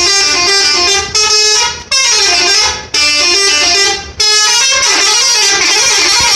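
Bus telolet horn, a multi-trumpet musical air horn, playing a tune of stepping notes. It is very loud, sounding in about four blasts of roughly a second each with short breaks between them, then a longer blast near the end.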